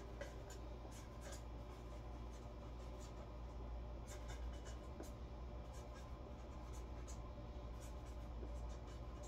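Faint scratching and rubbing with scattered light ticks from hand work at a workbench, over a steady low hum.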